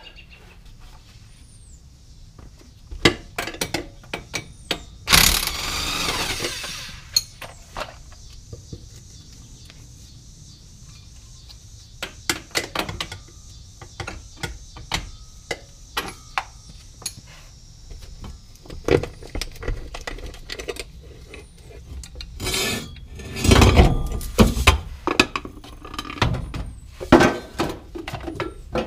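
Hand tools clanking, knocking and scraping on the metal underside of a car as parts are worked loose. A loud burst of noise lasting about two seconds comes about five seconds in, and the knocks bunch together near the end.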